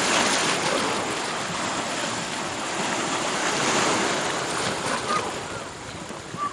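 Sea waves breaking and washing up on the shore, a rushing surge that swells at the start and again about halfway through, then eases off near the end.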